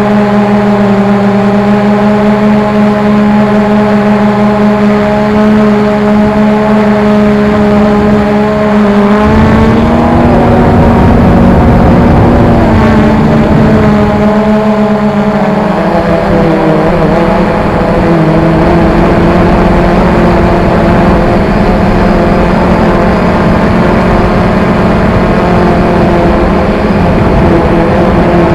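XK X380 quadcopter hovering: its motors and propellers give a steady multi-tone hum. About nine seconds in, a low rushing noise joins the hum, and the pitch rises for a few seconds before settling back.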